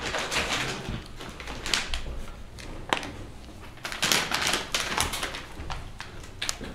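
Rustling and crinkling of paper and thick manila envelopes being handled and passed from one person to another, in uneven bursts, with a sharp click about three seconds in.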